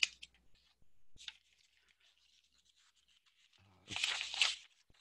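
Near silence between phrases of speech, broken by a few faint clicks at the start and a short breathy vocal noise from the speaker about four seconds in.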